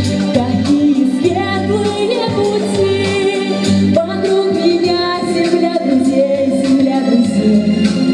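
A song: a woman singing a melody over keyboard accompaniment with a steady beat.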